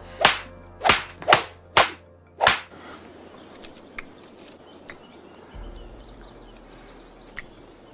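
Five sharp cracks in quick succession over the first two and a half seconds, then a few faint clicks.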